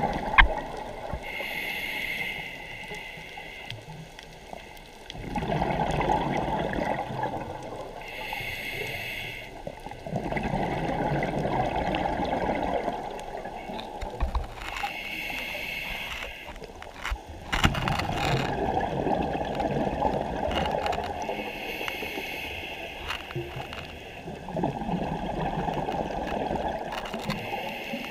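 Scuba diver breathing through a regulator underwater: four breaths, each a short hiss of inhaling followed by a longer burbling rush of exhaled bubbles, with a few sharp clicks between.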